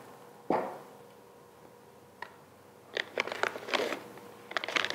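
A single thump as a charger is set down on a wooden table, a faint click, then a plastic bag crinkling in short scratchy bursts from about three seconds in as a bagged set of drone propellers is lifted out of a foam case.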